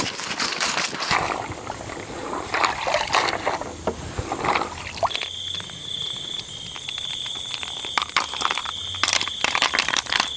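Water sloshing and rustling with scattered clicks as something is handled. About halfway through, a cricket starts a steady high-pitched trill that carries on.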